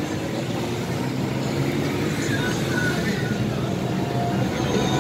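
City street traffic at a busy junction: motorcycle and car engines running past, with the chatter of a crowd mixed in.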